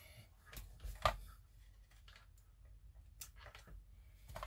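Faint, scattered clicks and light taps from small parts being handled, the sharpest about a second in.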